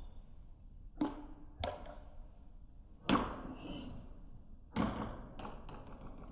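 Snack bags being handled while eating: about six short crackly taps and rustles, the loudest about three seconds in.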